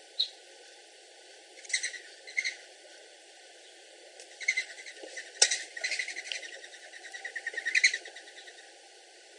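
Mourning doves: two short whistling notes, then a longer run of rapid, fluttering whistling pulses from about four and a half seconds in, with one sharp click in the middle.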